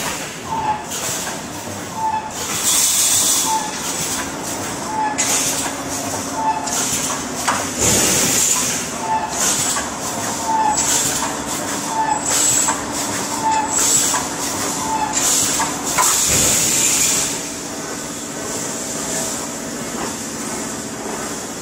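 Automatic wire mesh panel welding machine running through its cycle. A burst of air hiss comes about every second and a half, with clicks from the mechanism over a steady machine hum. The hissing stops near the end, leaving the hum.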